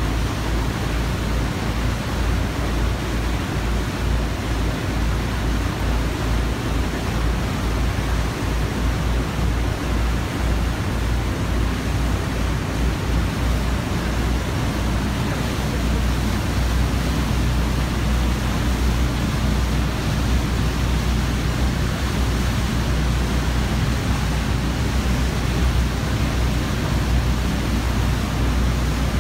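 Steady rushing noise of a motorboat under way: engine drone and the churning wake behind the stern, with a strong low rumble throughout.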